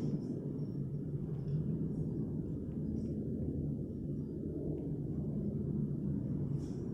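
Steady low rumble with faint small ticks now and then.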